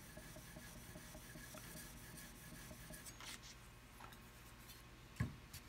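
Spokeshave blade, clamped in locking pliers, rubbed back and forth on wet 2,000-grit sandpaper over a granite slab: a faint scraping as the edge is honed and the burr taken off. A single sharp knock near the end.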